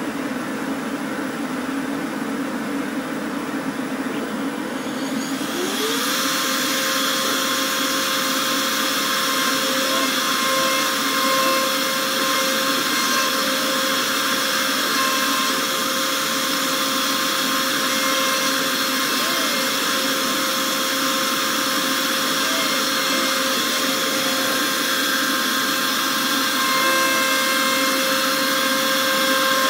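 CNC router at work on a wooden tray: a steady vacuum-like rush runs throughout, and about five seconds in a whine rises in pitch and then holds, with the added noise of the bit cutting the wood.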